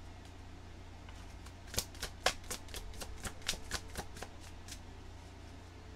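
A deck of tarot cards being shuffled by hand: a quick run of sharp card slaps, about four a second, starting about two seconds in and stopping near five seconds.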